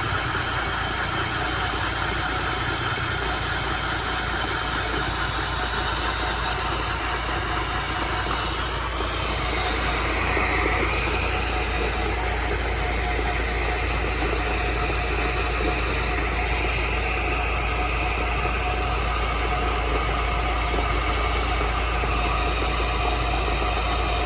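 Vehicle engine running steadily with an abnormal noise from the transmission. A higher whine comes in about ten seconds in, and the overall sound gets slightly louder.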